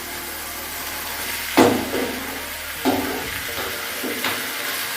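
Chicken curry cooking in a pan with a steady hiss, and two sharp metal clinks against the pan, about a second and a half in and again near the end.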